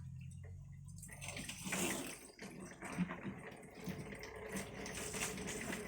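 Water splashing and trickling as it is sprayed onto frost and ice in a fridge's freezer compartment to melt it loose.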